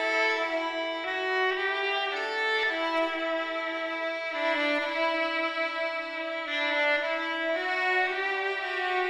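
Violin playing slow, sustained notes, often two at once, with the notes changing every second or two: background music.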